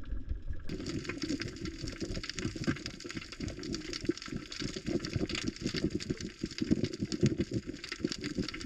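Underwater sound picked up by a camera below the surface: a dense, irregular crackle of clicks over a muffled rumble, starting about a second in.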